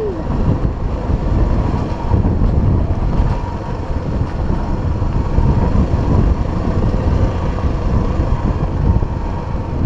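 Honda XR 250 Tornado's single-cylinder engine running steadily as the motorcycle rides along a dirt trail, under heavy wind rumble on the microphone.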